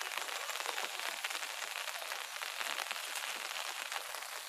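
Light rain pattering steadily on the ground, a dense hiss made of many small drop ticks.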